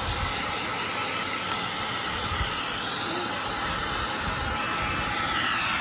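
Hand-held hair dryer running steadily, blowing with an even hiss and a faint steady whine.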